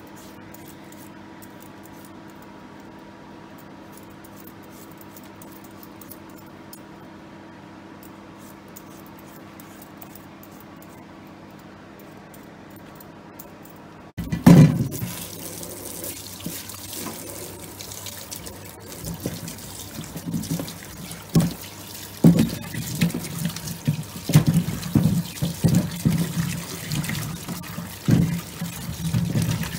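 A low steady hum for about the first half. Then a tap suddenly starts running into a stainless steel sink, and the water splashes over peeled potatoes as they are rinsed by hand, with repeated knocks of the potatoes against each other and the sink.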